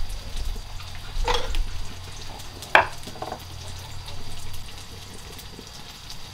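Food frying and being stirred in a pan, with two short sharp knocks about a second and a half apart.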